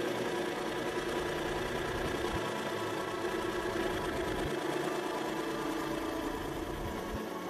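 Hydraulic press's pump and motor running with a steady mechanical hum made of several held tones.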